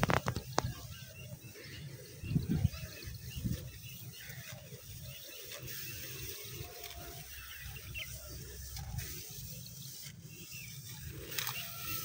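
Faint rural outdoor ambience: a low, fluttering rumble with a few faint chirps scattered through it, and a few brief clicks and rustles in the first few seconds.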